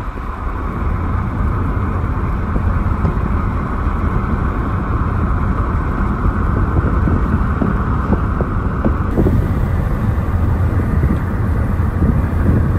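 Car driving at speed: loud, steady road and engine rumble.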